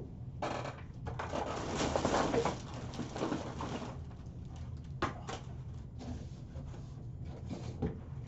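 Rustling and scraping of packaging being handled and opened, loudest for the first few seconds, followed by scattered light clicks and taps.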